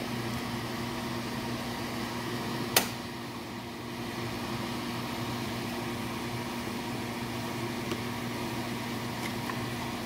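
Steady electrical hum of a running appliance motor or fan, with one sharp click about three seconds in and a faint tick near the end.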